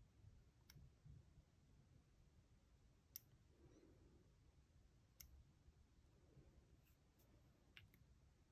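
Faint, sharp snips of a steel cuticle nipper's jaws closing on cuticle, about seven at irregular intervals over a near-silent room background.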